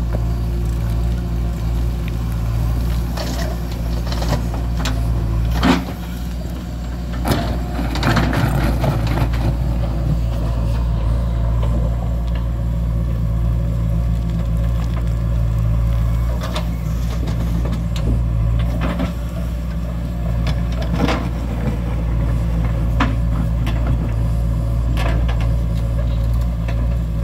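Heavy diesel engine running steadily under load, with scattered knocks and clatter, as a JCB 3DX backhoe loader digs and dumps mud into a tractor trolley.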